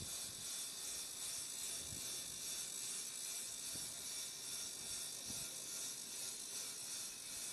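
Steady high-pitched hiss of background noise, with a few faint low knocks.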